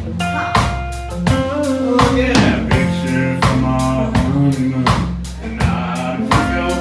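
Live country band playing an instrumental stretch of a song, with a drum kit keeping a steady beat about twice a second under acoustic guitar and bass.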